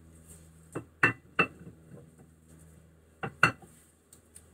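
Metal parts of a handbrake caliper clinking and knocking as they are handled on a workbench: a few short, sharp clinks, the loudest about a second in and again about three and a half seconds in.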